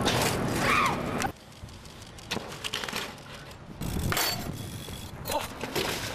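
BMX bike ridden on concrete: street and tyre noise for the first second or so, then sharp clacks and knocks of the bike hitting a ledge and landing, the loudest about four seconds in.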